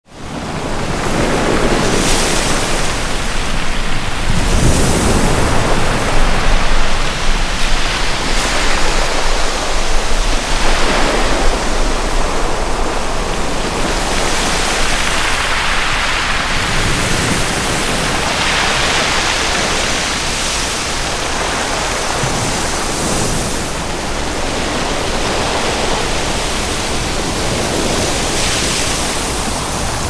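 Ocean waves breaking: a continuous rush of surf and foaming white water, swelling every few seconds as each wave crashes, fading in at the very start.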